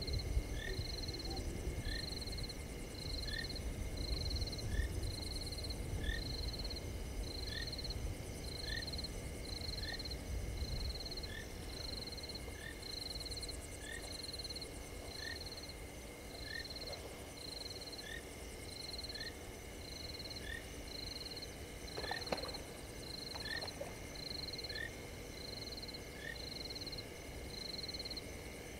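Frogs calling at a waterhole at night: a high, short peep repeated evenly about every 0.7 s, with fainter lower chirps in the same rhythm. A couple of faint snaps come about three quarters of the way through.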